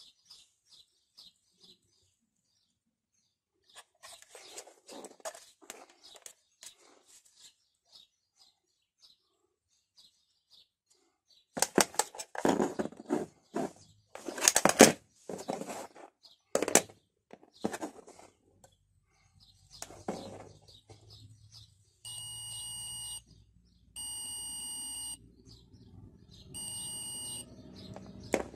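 Clicks and knocks of multimeter test leads and probes being handled, loudest a little before the middle, then a digital multimeter's continuity buzzer beeping three times, each a steady tone of about a second: the circuit between the probes is closed.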